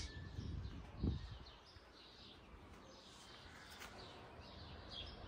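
Faint outdoor ambience with birds chirping on and off, and a single soft thump about a second in.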